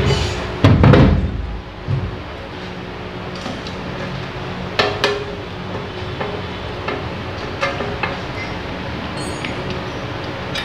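Hand tools knocking and clinking on the metal of a gondola hoist being taken apart. A heavy thump comes just under a second in, then a few scattered sharp knocks, over a steady low hum.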